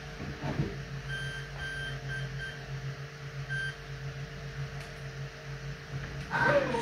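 Electronic speed controllers of an electric ducted-fan jetpack giving a series of short high beeps over a steady low hum, as they arm after the batteries are connected. Near the end the four 120 mm ducted fans begin to spin up with a rising whine.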